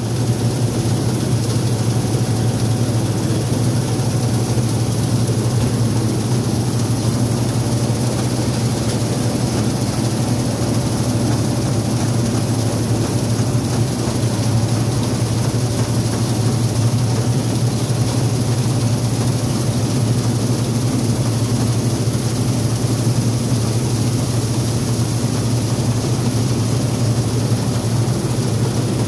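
New Holland TX36 combine harvester running steadily at working speed while harvesting grain: a constant low engine and machinery drone that holds the same pitch throughout.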